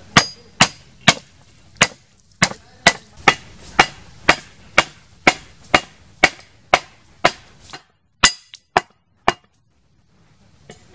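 A cleaver chops steadily on a wooden chopping block, about two strokes a second. Near the end come a few sharper strikes, the first with a short metallic ring.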